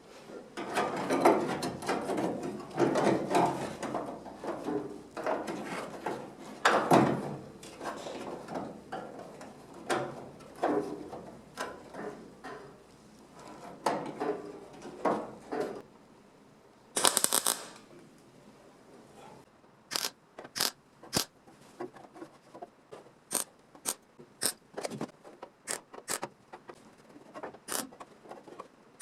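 Hand-tool work on car body sheet metal: a long run of scraping and rattling, a brief hiss about seventeen seconds in, then a string of separate sharp clicks.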